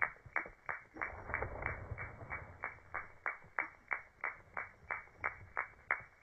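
Crepitation of a flying grasshopper: its wings give a steady run of sharp, dry clicks, about three a second. The clicks come from stiffened veins on the hind wings snapping back and forth between two shapes in flight.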